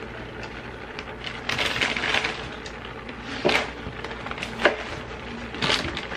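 Plastic bag crinkling and rustling in uneven bursts as shredded cheese is shaken out of it, with a few sharper crackles.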